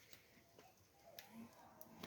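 Near silence, with a few faint sharp clicks and a faint pitched sound in the second half.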